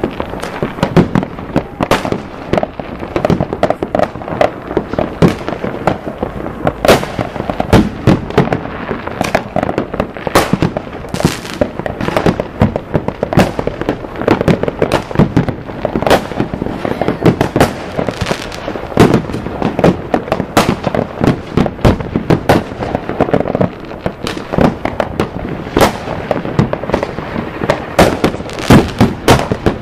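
Aerial fireworks going off in an unbroken barrage: sharp bangs and crackling pops, several a second, with louder booms scattered throughout.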